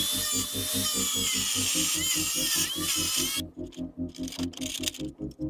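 Abrasive chop saw cutting through a rusty steel square tube, a high whine that dips as the disc bites, stopping suddenly about three and a half seconds in.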